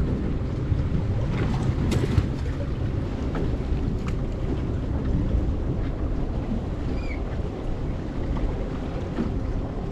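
Steady wind rumble on the microphone with sea and boat noise aboard a small fishing boat, and a few faint clicks.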